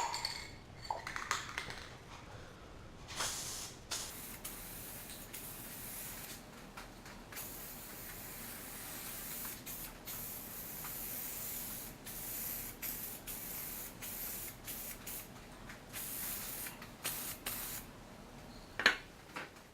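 Aerosol spray can of automotive clear coat hissing as it is sprayed onto a rubber door trim piece, in several long passes with short breaks between them. This is the clear coat going over freshly applied metallic red base coat.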